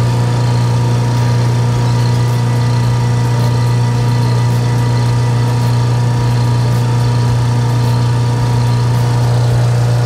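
Automotive A/C recovery and recharge machine running with a steady electric hum while new refrigerant oil is injected into the system.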